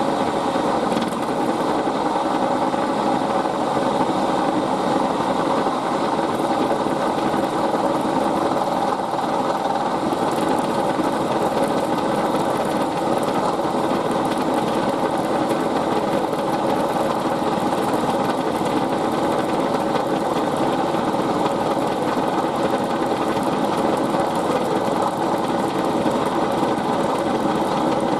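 Milling machine running steadily while its cutter flattens the edge of a brass bar-stock blank held in a vise, taking it down to a scribed datum line.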